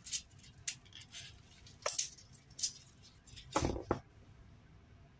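Vegetables being handled on a kitchen counter: scattered light taps, knocks and rustles, with a louder knock-and-rustle about three and a half seconds in.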